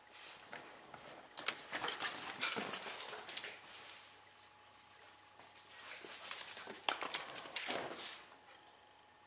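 Coton de Tulear dogs playing: two stretches of scuffling and scratchy noise with quick clicks, a few seconds each.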